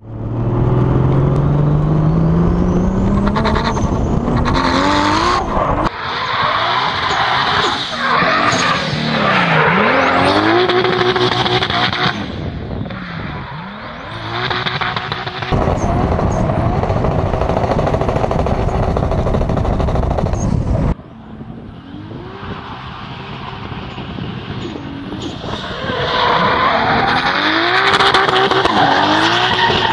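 A 500+ hp Nissan 200SX S14 drift car driven hard, its engine revving and its tyres squealing through drifts. The engine note climbs steadily at first, then dips and rises again and again with the throttle. It falls away about two-thirds of the way through and builds back near the end.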